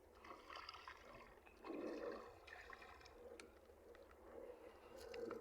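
Faint water lapping and trickling, with a few soft ticks.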